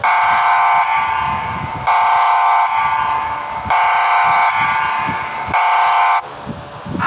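EAS-style emergency alarm tone: a buzzy, horn-like electronic tone that alternates between a louder and a softer step about every second, then drops away about six seconds in.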